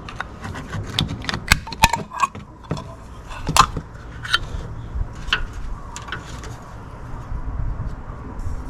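Scattered light clicks and clinks of a can of engine oil treatment and a funnel being handled at the engine's oil filler, thinning out after about five seconds, over a low steady background.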